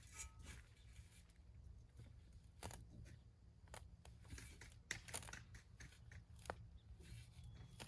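Near silence: faint scattered clicks and rustles over a low steady hum.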